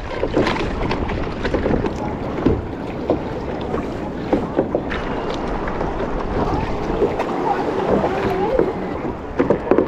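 Water sloshing and splashing against a plastic sit-on-top kayak as the paddle dips into choppy sea, with wind buffeting the microphone. The splashes come in short, irregular strokes over a steady wash of water.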